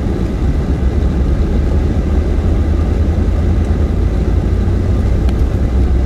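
Steady low rumble of a truck driving, its engine and tyre noise heard from inside the cab.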